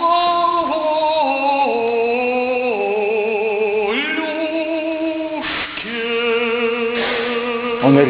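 Music: a woman's voice singing long held notes that step downward in pitch, breaking off briefly about five and a half seconds in before a new phrase begins.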